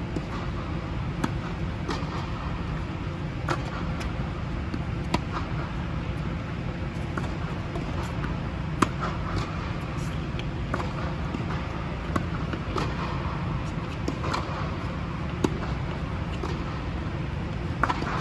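Tennis rally: sharp pops of racket strings striking the ball and the ball bouncing on a hard court, every second or two, the near player's hits loudest. Under them runs a steady low hum.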